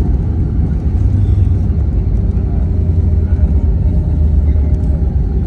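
Steady low cabin rumble of an Airbus A321neo taxiing after landing, with its engines at idle and its wheels rolling over the taxiway. A faint steady hum runs under the rumble.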